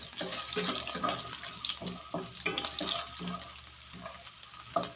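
Shallots frying in hot oil in a pan: a steady sizzle with many small crackles.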